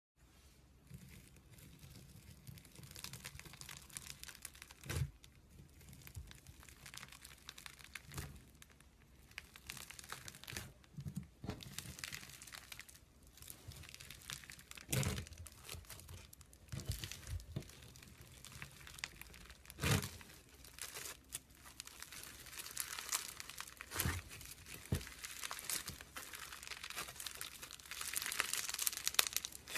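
Foam-bead slime (floam) being pressed and squeezed by hand: a continuous fine crackling of the beads, broken by several louder squishy presses. The crackling grows denser and louder near the end.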